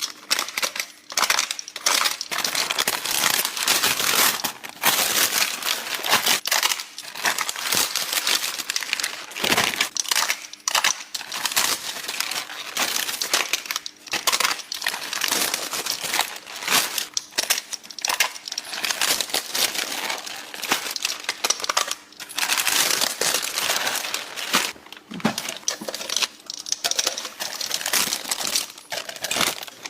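Plastic bags and food packaging crinkling and rustling continuously, with frequent small clicks and clatters of items being handled and set down, as groceries are unpacked into a fridge.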